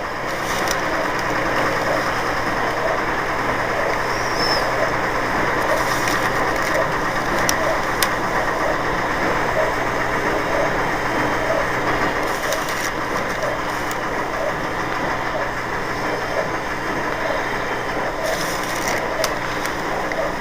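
A steady mechanical hum and whir that does not change, with a low droning tone beneath it.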